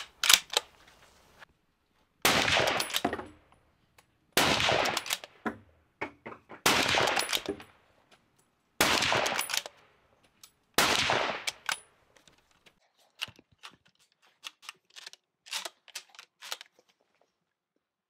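Five .30-06 rifle shots from a Sako 85 bolt-action rifle, about two seconds apart, each trailing off briefly, with light clicks of the bolt being worked between shots. A run of lighter clicks follows the last shot.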